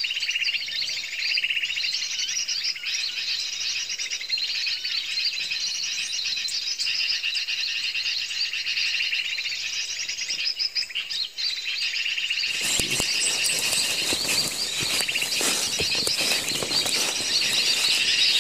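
Small birds chirping densely and without a break. In the last six seconds there is crackling and rustling, like someone pushing through dry undergrowth and brush.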